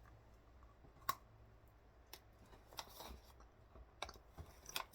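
Faint, scattered clicks and crunches of a person chewing a freeze-dried blueberry coated in cream.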